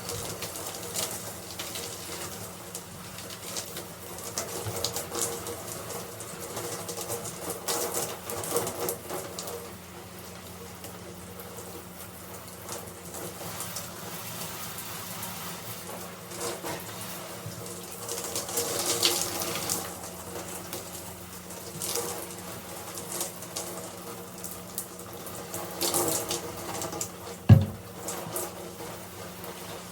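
Shower water running and splashing, rising and falling unevenly as it is moved through, with one sharp knock near the end.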